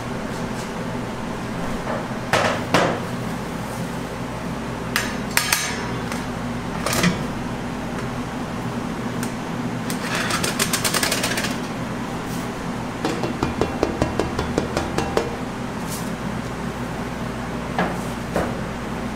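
Metal knocks and clanks from a stainless-steel chocolate guitar cutter and a metal tray as a chocolate slab is set onto the cutter's base. There is a brief rattle partway through and a quick run of light clicks after it, over a steady low hum.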